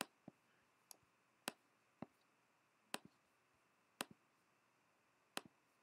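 Short, sharp clicks of a computer mouse, about eight of them at uneven intervals, some in quick press-and-release pairs, with near silence between.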